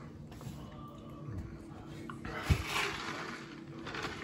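A man breathing out hard through his mouth, in pain from the burn of a ghost pepper, with a soft low thump about two and a half seconds in.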